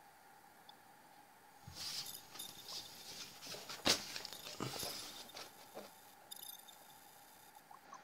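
Cardboard puzzle card being handled and shifted over the cardboard advent calendar: soft rustling and scraping with light taps, starting about two seconds in. The loudest sound is one sharp tap near the middle.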